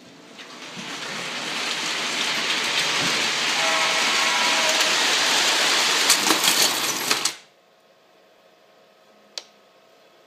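Lionel electric diesel locomotive running on the track, its noise building over the first two seconds and then holding steady, with a brief horn about four seconds in. About six seconds in there is a clatter of knocks as it crashes into a toy semi truck, and the sound cuts off suddenly about a second later. One faint click follows.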